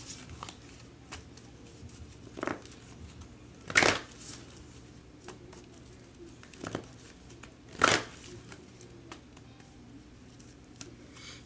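A deck of oracle cards being shuffled by hand: soft rustling and faint ticking of the cards, broken by four brief, sharper bursts of cards, the loudest about four seconds in.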